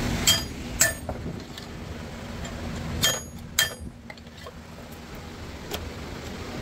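Sharp metal-on-metal clinks, as of steel parts or a hammer knocking on metal: two quick ringing clinks, another pair about three seconds later, and a fainter one near the end.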